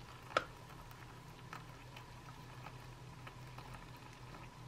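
Water poured from a metal cup into a pouch of freeze-dried chicken and rice, heard as faint scattered trickling and crackling as the dry food takes up the water. One sharper click comes about half a second in.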